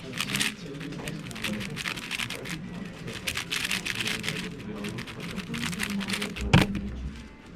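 MoYu Weilong-style magnetic 4x4 speedcube being turned at speed, a dense run of rapid plastic clicks and clatter. About six and a half seconds in comes a single sharp thump, the loudest sound, as the hands come down on the timer pads to stop the solve.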